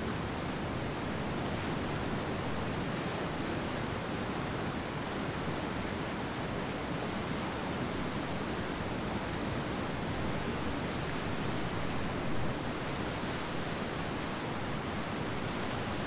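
Ocean surf washing steadily onto a beach, with a brief louder surge about twelve seconds in.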